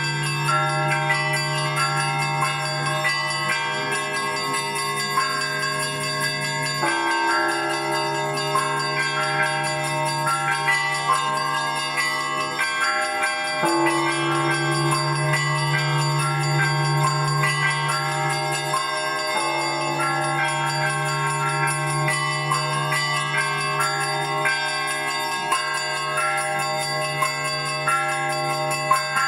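Russian Orthodox church bells in a full peal: smaller bells ring in quick, continuous patterns over a deep bass bell that hums beneath and is struck again every five to seven seconds.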